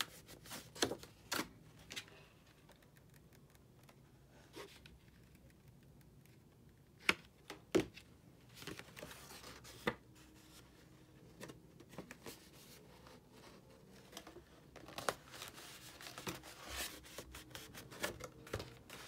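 Heavy cardstock paper petals rustling and crinkling as hands press and handle them, with scattered sharp taps and clicks.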